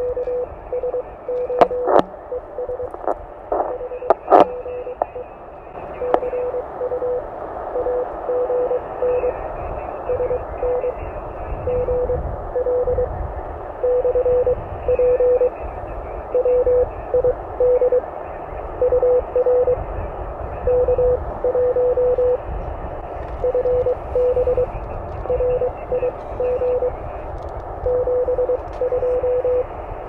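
Morse code (CW) copied on an Elecraft K1 transceiver's speaker: a single steady tone keyed in dots and dashes by a distant station, over a bed of receiver hiss and band noise. A few sharp clicks come in the first few seconds.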